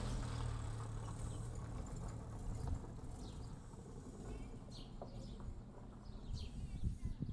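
Outdoor ambience during rain. A low steady hum fades out over the first couple of seconds, then a bird gives several short, falling chirps.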